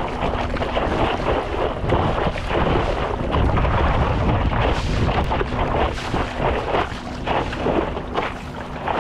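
Wind rumbling on a board-mounted camera's microphone, with water splashing and sloshing against a moving stand-up paddle board.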